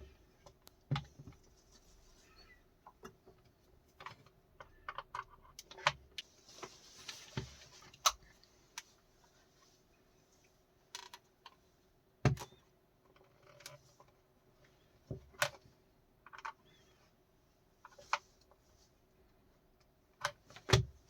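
Irregular clicks, taps and knocks of small hard objects being handled, with a few heavier thumps, over a faint steady hum.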